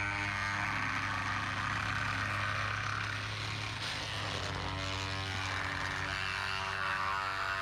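An engine running steadily at constant speed, a low hum under a rushing noise, with a few pitched tones coming in about five seconds in.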